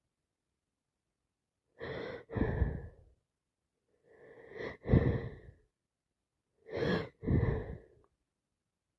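A woman with a cold sneezing three times. Each sneeze is a short catching in-breath followed by a louder burst, and the middle one builds up longest and is the loudest.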